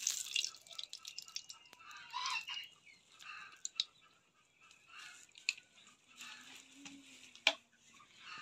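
Light scattered crackles and clicks from a black kadai of cooking oil heating over an open fire, with a few short chirping calls in the background during the first few seconds.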